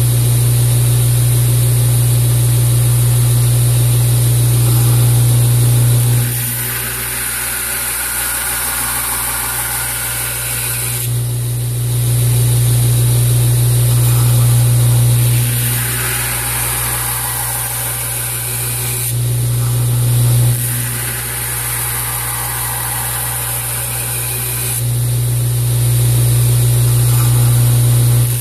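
2x72 belt grinder (Wilmont LB1000) running, with steel knife blades being ground against the abrasive belt. The sound shifts back and forth every few seconds between a stronger, deeper hum and a higher hiss as the grinding passes change.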